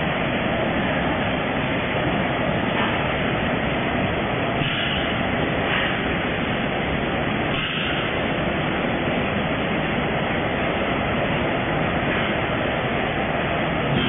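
Steady running noise of an automatic packaging line, with conveyors and machines working together, and a few faint, brief higher rattles about five, six and eight seconds in.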